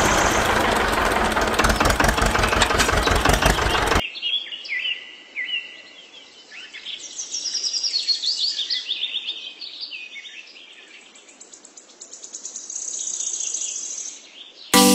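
An engine running with a rapid, even beat cuts off abruptly about four seconds in. Birds then chirp and twitter in short high sweeps, swelling twice.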